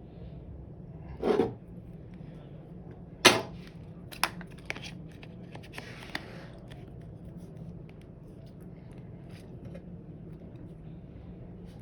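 Taps and clicks from handling phone parts and tools during reassembly. A dull knock comes about a second in, then the loudest, sharp click about three seconds in, followed by a few lighter clicks, all over a low steady hum.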